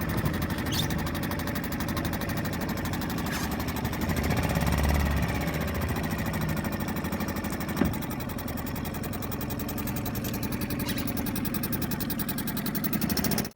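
Suzuki 2.5 hp four-stroke single-cylinder outboard motor running steadily at low speed just after starting, quiet, with a slight rise in level about four seconds in and a single tap near the middle.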